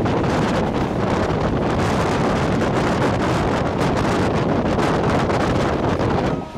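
Wind buffeting the microphone over the steady rumble of a moving train.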